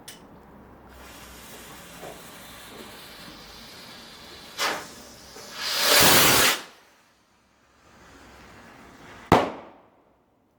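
Firework going off in two stages: a fuse hissing for a few seconds, a short burst, then a loud whoosh as it fires, and about three seconds later a single sharp bang.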